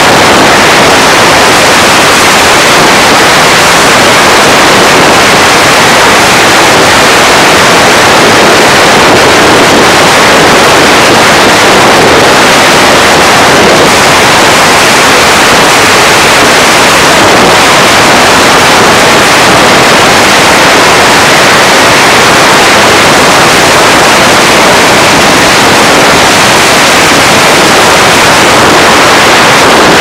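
Loud, steady rush of wind and tyre noise from a car driving at freeway speed.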